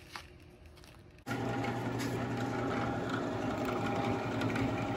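Drill press motor comes in suddenly about a second in and runs steadily with a low hum and a thin whine, a small router bit in its chuck picking away at bubble pits in a cast aluminum coaster.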